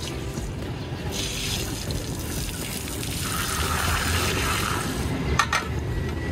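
Water pouring out and splashing as a solar water heater is drained, a rushing hiss that swells and then fades, with a couple of sharp clicks near the end.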